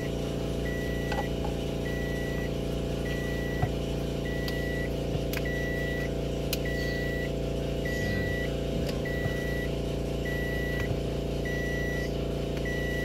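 A short electronic warning beep repeating about every 1.2 seconds, like a vehicle's reversing or warning beeper, over a steady low hum. A few light clicks come from a plastic additive bottle cap being twisted open.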